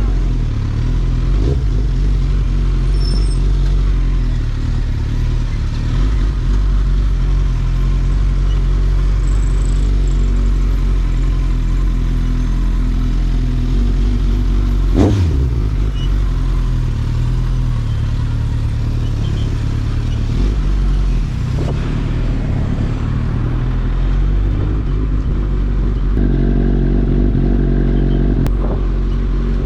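Suzuki GSX-S1000's inline-four engine running at a fairly steady pitch under way, through a LeoVince exhaust, with one sharp pop about halfway through.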